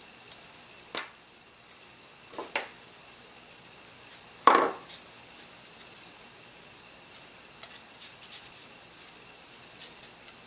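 Small clicks and ticks of a balsa motor stick and its wire fitting being handled over a workbench, with a soft knock about halfway through as something is set down on the table.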